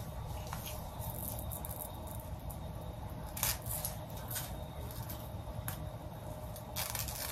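Scissors snipping the excess lace off a lace-front wig at the hairline: several sharp snips, most of them from about halfway on, over a steady low background hum.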